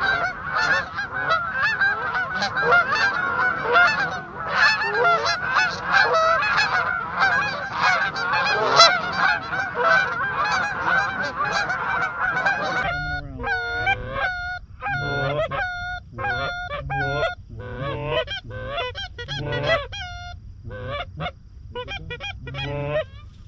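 Canada geese honking: a dense chorus of many overlapping calls from a flock, which about thirteen seconds in changes abruptly to separate honks, one or two at a time.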